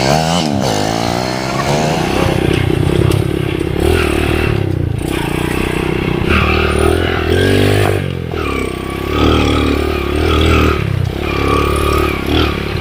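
Underbone motorcycle engine running under load on a rough trail, the revs rising and falling again and again as the throttle is worked, with some clatter from the bike over the ground.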